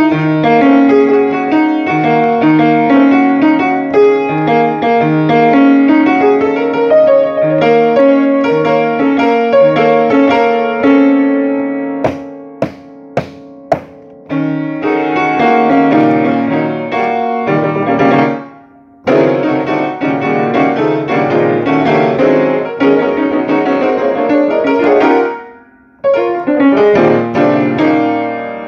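Solo acoustic piano playing: a low note repeating under a melody, then four short detached chords about twelve seconds in, and two brief pauses later before the playing resumes.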